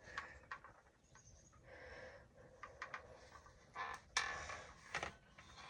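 Faint, scattered clicks and soft rustling of hair being straightened with a flat iron.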